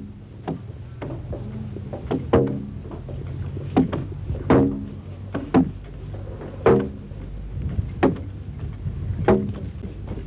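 Heavy blows of hand tools on hardwood boat timbers, about eight knocks at uneven spacing, each ringing briefly, over a steady low hum.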